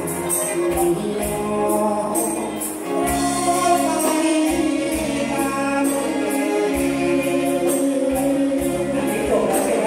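Live band playing a Thai luk thung song: drum kit with a steady cymbal beat, electric guitar and keyboard, with a man singing over it from about three seconds in.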